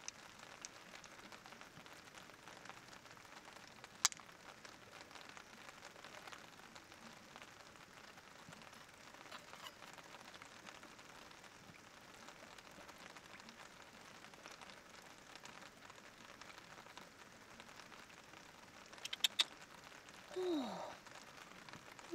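Faint steady hiss with a sharp click about four seconds in and a few more clicks near the end, followed by a person's short exclamation with a falling pitch.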